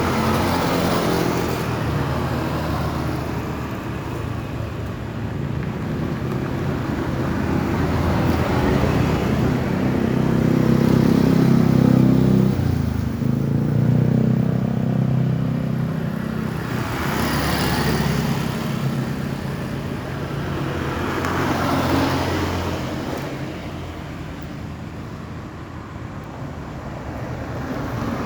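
Road traffic with vehicles passing one after another. One engine is loudest around ten to fourteen seconds in, and other vehicles swish past a few seconds apart later on.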